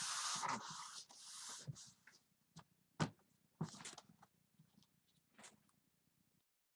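A damp cloth rubbing over a silkscreen transfer to wipe leftover chalk ink off it, a soft scrubbing hiss that fades out after about a second and a half. Then a few light, separate taps as the screen and towel are handled on the cutting mat.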